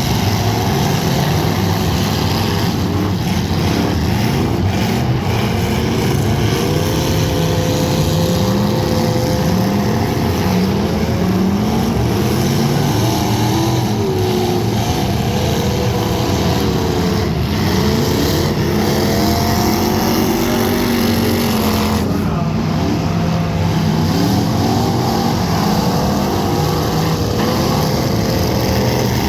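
Several demolition derby car engines running and revving, their pitches rising and falling over one another, with a few sharp knocks from car-to-car hits.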